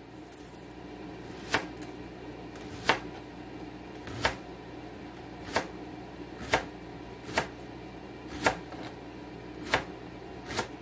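A kitchen knife slicing a leek into rounds on a plastic cutting board. Each cut ends in a sharp tap of the blade on the board, about nine in all, roughly one a second and unevenly spaced.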